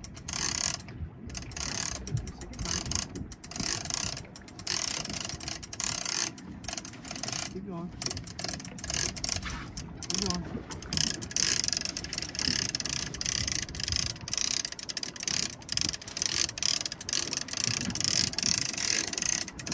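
Heavy conventional fishing reel being cranked against a hooked fish, its gears clicking and rattling in repeated short bursts, one for each stroke of the handle.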